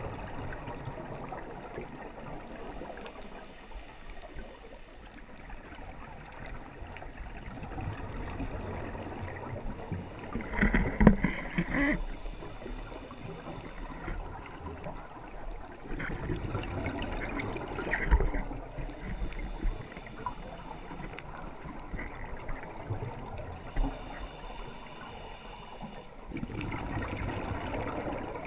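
Scuba divers' exhaled bubbles gurgling out of their regulators, heard underwater, in three louder bursts several seconds apart over a steady low rush of water noise.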